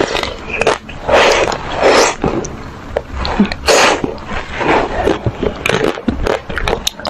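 Mouth sounds of eating ice cream: several short, wet slurping and sucking bursts, with small mouth clicks between them.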